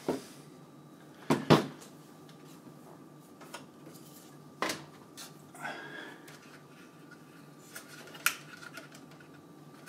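Hands handling cables and parts inside a PC case: scattered sharp clicks and knocks of plastic and metal, the loudest a double knock about one and a half seconds in.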